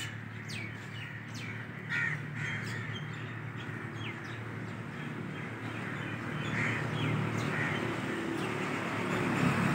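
Crows cawing every so often, with a few brief bird chirps, over a steady low hum.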